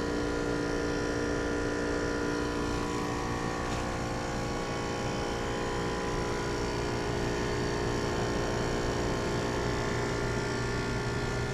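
Mainline central air conditioner condensing units running: a steady hum with several held tones from the compressors and condenser fans.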